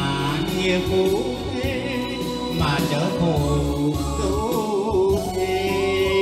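A man singing a Vietnamese song into a microphone over backing music, his voice settling into a long held note near the end.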